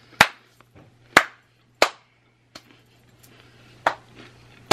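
Five short, sharp taps and clicks at irregular intervals: dropped rice cakes being picked up off the floor and set down.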